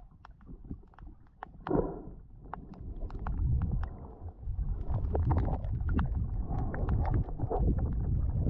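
Strong current rushing past an underwater GoPro camera: a loud, wind-like low rumble that builds from about three seconds in and stays loud. Before it builds, there are scattered sharp underwater clicks.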